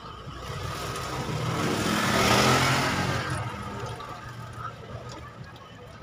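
A motor vehicle passing by, its engine and road noise swelling to a peak about two and a half seconds in, then fading away.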